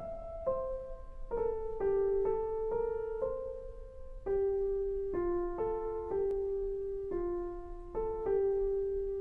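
Slow, gentle instrumental piano melody: single notes struck about one or two a second, each left to ring and fade.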